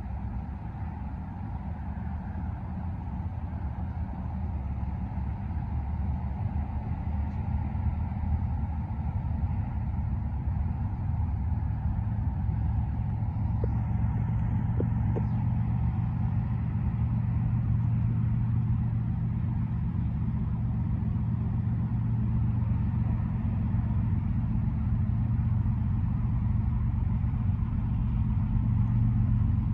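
Low, steady engine rumble with a deep hum, slowly growing louder.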